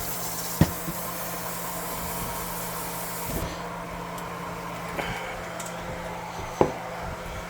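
Kitchen faucet running into the sink with a steady hiss, shut off about three and a half seconds in. A few light clicks and knocks follow.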